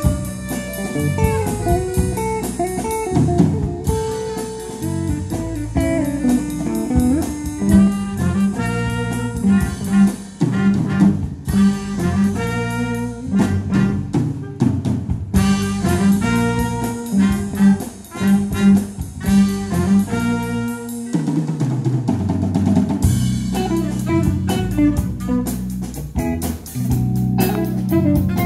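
A jazz big band plays a swing tune live: a saxophone section with brass, electric guitar, drum kit and keyboard. The middle of the passage is a run of short, punchy ensemble hits over the drums, and the band thins out briefly about three-quarters of the way through.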